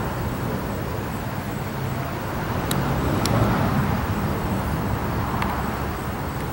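Steady low outdoor rumble, with a few light, sharp clicks about three and five seconds in as small parts of a Poulan chainsaw's fuel system are handled while its primer bulb is swapped.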